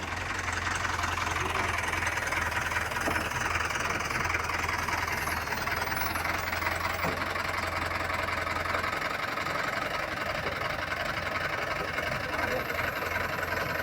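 Construction machinery running steadily, with a low hum underneath that stops about nine seconds in.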